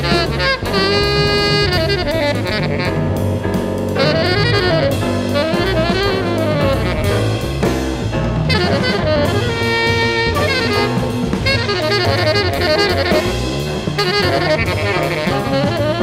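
Background jazz music: saxophone playing a melody over a drum kit beat.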